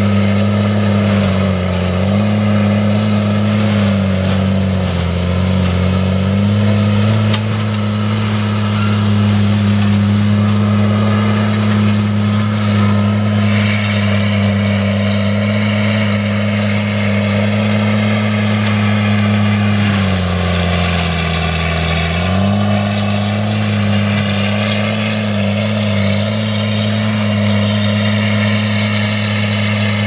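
Rayco tracked forestry mulcher's diesel engine and mulching head running hard and steadily. The engine note sags briefly about two-thirds of the way through and then comes back up to speed.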